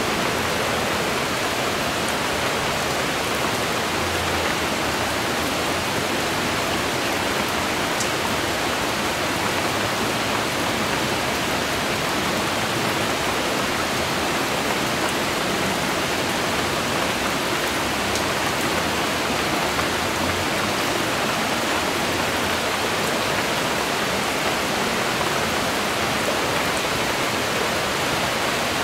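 Steady rain falling: an even, unbroken hiss of drops that holds at the same level throughout.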